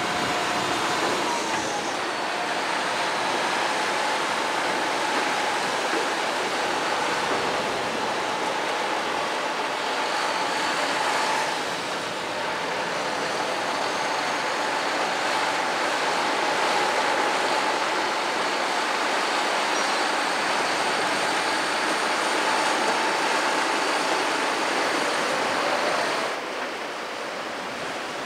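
MAN heavy military truck running as it drives across a wet sand beach: a steady engine drone with a thin whine, dipping in pitch about a second and a half in. The sound drops away abruptly near the end.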